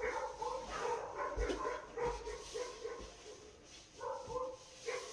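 A dog giving short, high, repeated calls, two or three a second, with a brief pause a little before the end.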